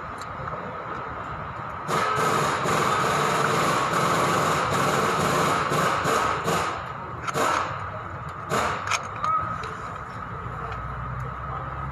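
Compressed air hissing loudly for about five seconds in uneven spurts, then three short blasts, over a steady workshop hum.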